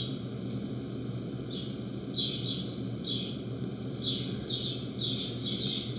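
A bird chirping: a string of short, falling chirps at irregular intervals, over a steady low hum.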